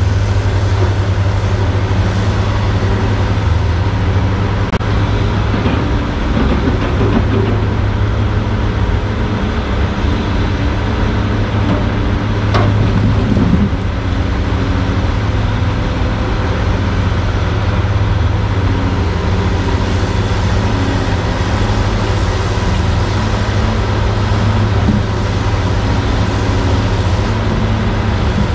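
Diesel engines running steadily as a log loader works its grapple over a loaded logging truck, the engine note rising and falling with the hydraulic load. There is one sharp knock a little under halfway through.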